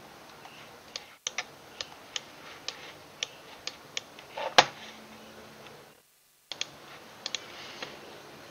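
Computer mouse clicking: a string of short sharp clicks at an irregular pace, about two a second, with one louder click about halfway through, over faint room hiss. The background drops out completely for about half a second just after six seconds in.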